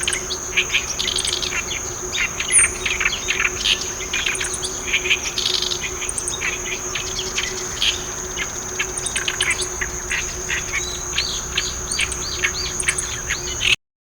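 Oriental reed warbler singing its loud, harsh, chattering song of rapid repeated notes over a steady high-pitched insect trill. The audio cuts off abruptly shortly before the end.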